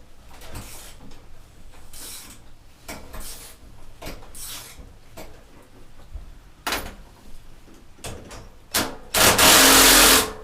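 Hands and tools working on metal parts: irregular scraping and rubbing strokes, then about a second of loud rushing noise near the end.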